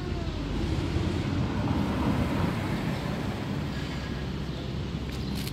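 The end of a tabby cat's meow, falling in pitch, trails off in the first half second, over a steady low rumbling noise that swells about two seconds in.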